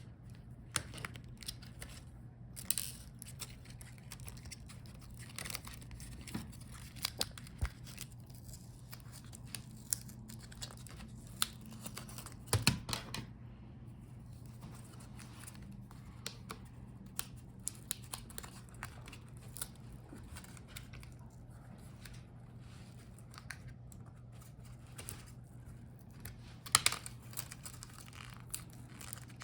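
Small screws being turned out of a laptop palmrest with a precision screwdriver, heard as scattered small clicks and scrapes at irregular intervals, over a steady low hum.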